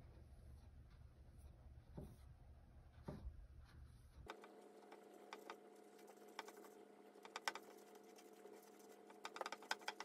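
Faint scratchy taps and strokes of a flat paintbrush laying acrylic paint onto stretched canvas, a few scattered strokes and then a quick cluster near the end, over near-silent room tone. A faint steady hum comes in about four seconds in.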